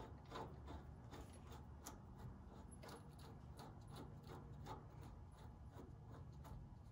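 Faint clicking and rubbing of a spindle nut being spun by hand onto the threaded front wheel spindle to hold the new hub, over a low steady hum.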